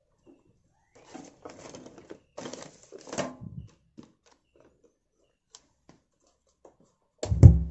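Scattered soft handling noises, then near the end a sudden loud low thump as a power amplifier is switched on, going straight into a steady low mains hum through the speaker.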